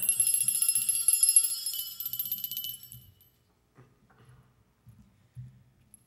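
A small hand bell shaken rapidly, a bright, high-pitched jangling ring of fast repeated strikes for about three seconds that then stops, followed by a few faint knocks.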